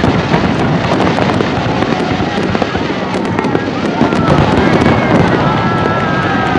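Aerial firework shells bursting in quick succession, a dense mix of bangs and crackle. In the second half a few long high tones sound over it.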